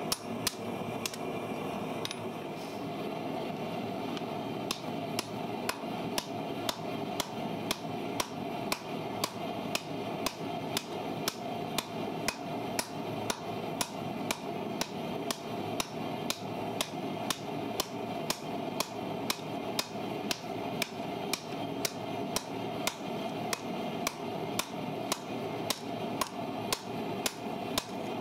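Hand hammer striking red-hot steel from an old farrier's rasp on an anvil, in steady, evenly spaced blows about twice a second.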